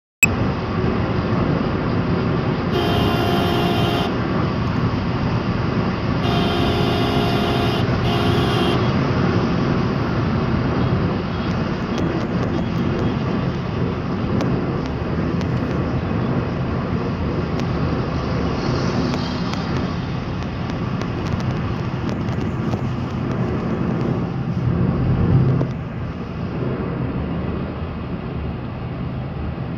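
Steady road and engine noise heard from inside a moving car on a highway. A vehicle horn honks about three seconds in, then again for longer around six to nine seconds in.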